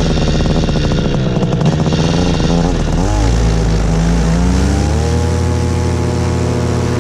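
Paramotor engine and propeller running at high power, the pitch wavering for the first few seconds and then settling into a steady drone about five seconds in.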